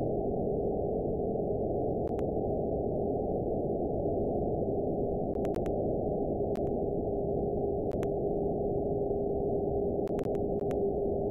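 Shortwave-style receiver hiss from an RTL-SDR demodulating a 49.75 MHz TV channel, band-limited to below about 1 kHz, with a steady whistle near 400 Hz: the beat note of the distant TV transmitter's carrier received by scatter. The whistle grows stronger in the last few seconds.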